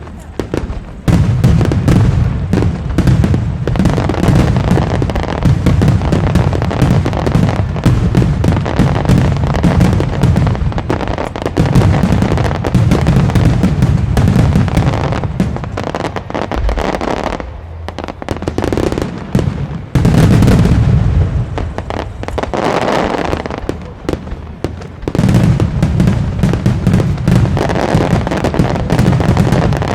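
Aerial fireworks display: a dense, loud barrage of bursts and crackles that starts about a second in. It eases off briefly twice in the latter half and builds again near the end.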